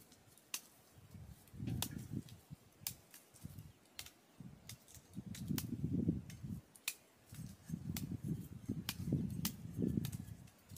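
Knives cutting and paring the peel off cassava roots by hand: scattered sharp snicks and clicks, with intermittent bursts of low rumble.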